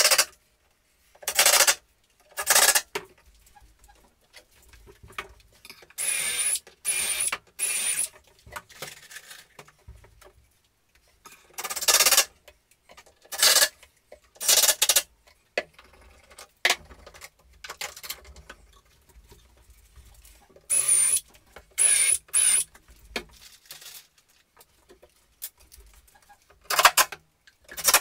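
Cordless drill run in short trigger bursts, each under a second, several in quick runs of three with a thin high motor whine, between quieter handling knocks and clatter.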